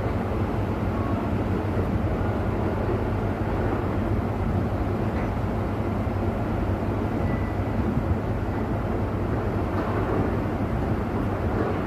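An engine running steadily at a constant speed: a low hum with a rumble over it, unchanging throughout.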